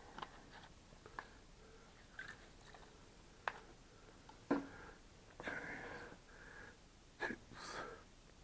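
Scattered small clicks, knocks and short rustles of parts and tools being handled at a workbench. The loudest is a knock about four and a half seconds in, with longer rustles soon after and again near the end.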